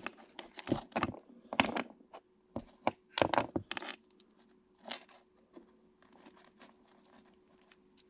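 Irregular handling noises of a plastic action figure and its servo wires being picked up and moved about on a wooden workbench: clicks, knocks and rustles, busiest in the first four seconds and then sparser.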